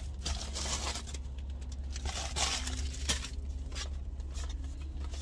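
Plastic packaging being handled and opened, with irregular crinkling and tearing and a sharp click about three seconds in, over a steady low hum.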